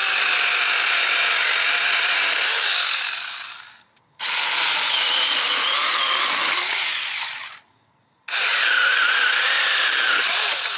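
Battery-powered mini chainsaws, a 4-inch Saker and a 6-inch Alloyman, cutting in turn through a 2-inch honeysuckle branch. There are three runs of electric motor whine and chain chewing through wood, each stopping abruptly, with a short silence between them. The Alloyman's motor sounds to the owner like it is struggling a little under the load.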